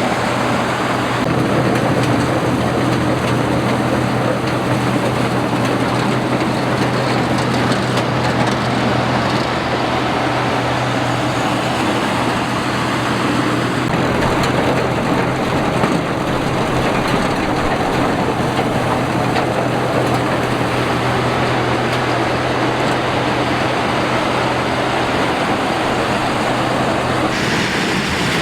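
Combine harvester running steadily in a rice paddy, a continuous mechanical din with a constant low engine hum. The hum drops out and the sound changes about a second before the end.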